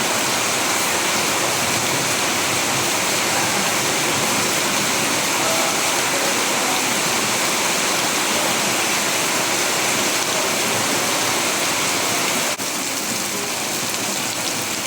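Steady heavy rain, an even hiss with no single drops standing out. About twelve and a half seconds in it briefly drops out and comes back slightly quieter.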